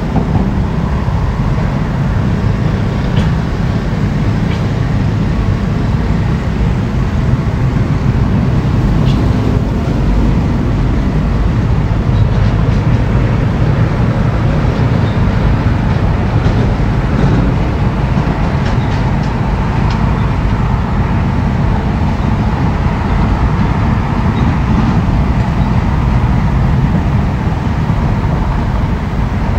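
Diesel engine of heavy earthmoving machinery running steadily, loud and low-pitched, with a few faint ticks around the middle.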